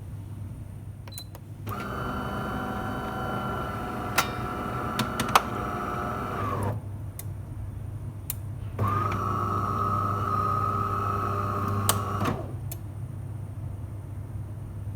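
DeLonghi Eletta Cappuccino coffee machine running its motor twice, a steady pitched hum of about five seconds and then about three and a half seconds, with a few sharp clicks during the first run.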